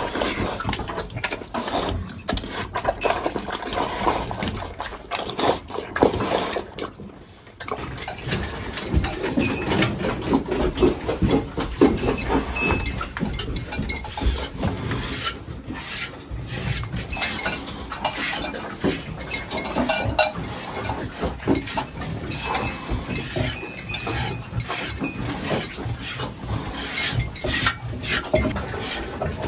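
Livestock being fed and tended in a wooden barn: pigs eating at a trough at first, then a cow in its stall, amid frequent knocks, clatters and rustling.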